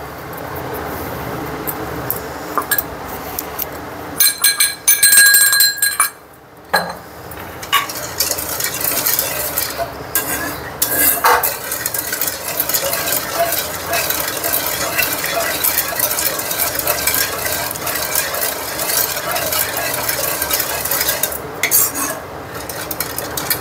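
Steel ladle stirring and scraping through thick milk and sago in a kadhai, mixing in sugar and crushed cardamom. About four seconds in comes a short run of ringing metal clinks, then steady stirring for the rest.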